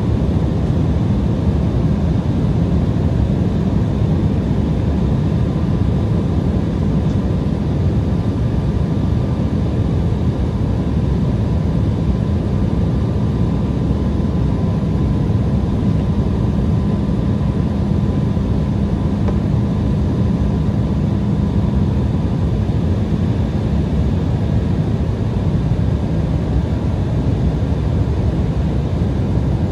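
Steady cabin noise inside an Embraer ERJ-175 airliner descending toward landing: a low rush of airflow and turbofan engine noise, with a steady low hum and a fainter higher tone running through it.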